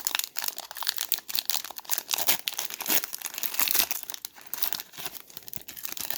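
Foil wrapper of a trading-card pack being torn open and crumpled by hand, a dense, rapid crinkling.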